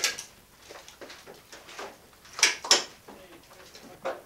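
Plaster being stripped off a log wall with a hand tool: short scraping bursts, one at the start, two close together about two and a half seconds in, and one near the end.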